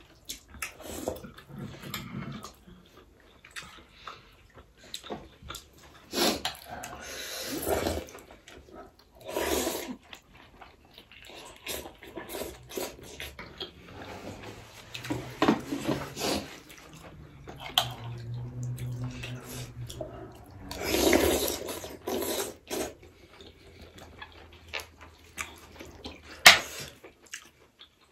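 Close-up eating sounds: wet chewing and slurping of juicy mutton momos (dumplings) and soup, with spoons clicking against glass plates, one sharp clink near the end.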